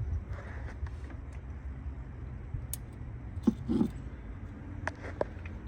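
A low steady rumble with a few short clicks and knocks scattered through, a small cluster of them a little past the middle and two more near the end.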